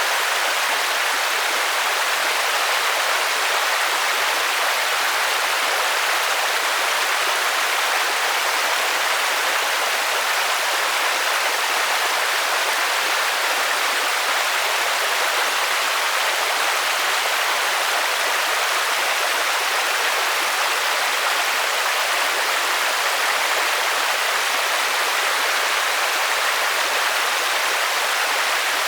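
Steady rain falling: an even hiss with no single drops standing out.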